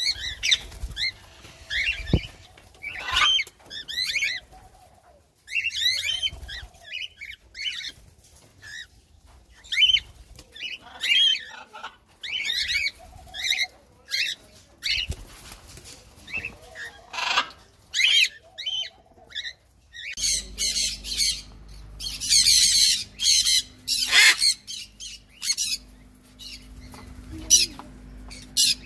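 Pet aviary birds calling: cockatiels and other small birds giving short chirps and whistled calls, then from about two-thirds of the way in a dense run of loud, harsh parrot calls from a sun conure and parakeets.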